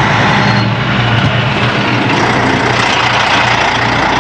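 Diesel truck engine idling steadily, running again now that the loose fuel filter that let it lose fuel has been tightened and the fuel re-primed.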